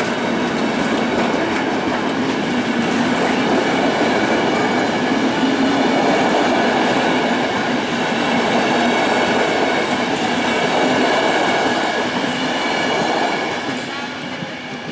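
Regional passenger train of an E 464 electric locomotive and low-floor coaches passing close by: a loud, steady rumble of wheels on rails with clicking over the rail joints, dropping away near the end as the last vehicle goes by.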